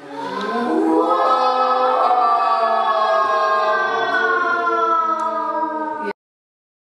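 A group of children singing together without accompaniment, their voices sliding up at the start and then holding long notes. It cuts off abruptly about six seconds in.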